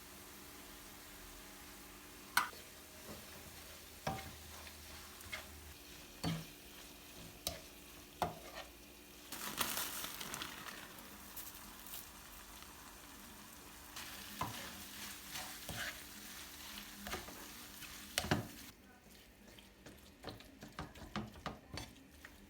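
Food sizzling in a frying pan while being stirred, with scattered clicks and taps of a utensil against the pan. The sizzling is louder for a moment about ten seconds in.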